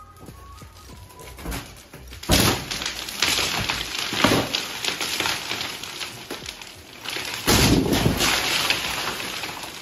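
Fibreboard ceiling panels being prised and torn down with a bar. About two seconds in, a sudden crash and a long crackling, rustling clatter as the boards and debris come down, then a second crash about seven and a half seconds in.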